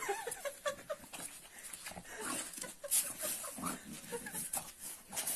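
A dog whimpering in short, high, rising-and-falling notes, with scattered clicks.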